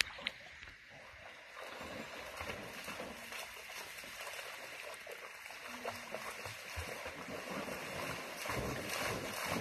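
A dog splashing through a shallow stream over the sound of flowing water. The splashing grows louder towards the end.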